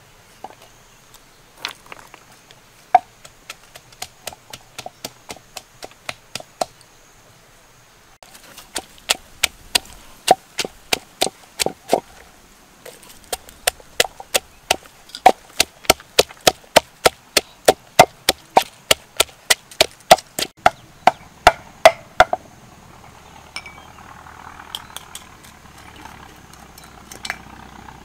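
Wooden pestle pounding garlic, green chilies and shallots in a clay mortar: repeated knocks, light and sparse at first, then heavier and steady at about two strokes a second, stopping about three quarters of the way through.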